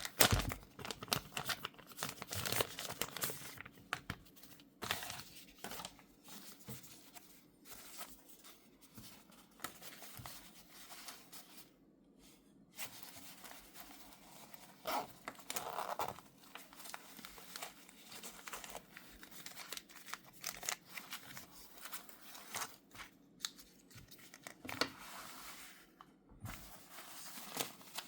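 Product packaging being opened by hand: irregular crinkling and tearing of plastic and paper wrapping, with short sharp clicks and taps as the box and its contents are handled.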